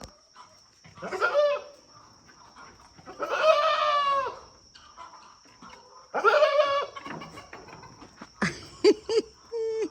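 Farm animal calls: three drawn-out cries, the middle one about a second long, followed by a few short sharp calls near the end.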